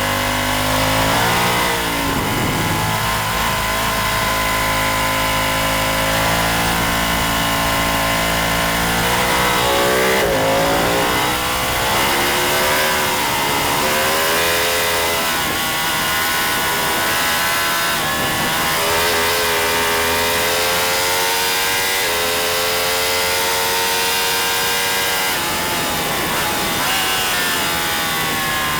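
Racing motorcycle engine under hard load, its pitch repeatedly climbing through the revs and dropping back at gear changes and braking, with steady stretches held at high revs.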